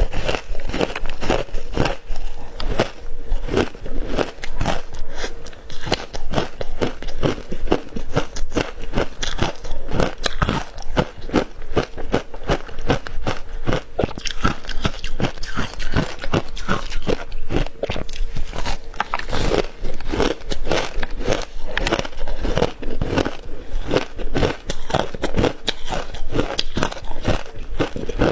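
Close-up crunching of hard ice being bitten and chewed, a dense run of sharp cracking crunches.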